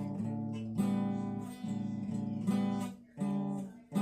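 Acoustic guitar strumming chords as a song intro, each chord struck about once a second and left ringing, the last few shorter with short breaks between them.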